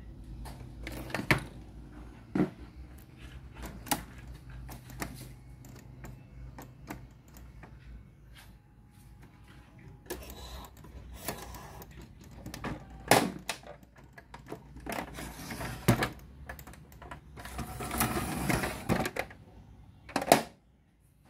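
Irregular clicks, taps and knocks of plastic and metal parts being handled while a Sanyo MW220K cassette radio is worked on, with a longer scraping rustle near the end and a low hum underneath for the first half.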